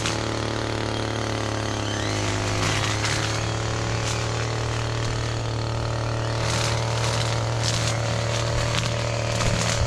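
Small engine running steadily at one even pitch, with short rustles of brush now and then.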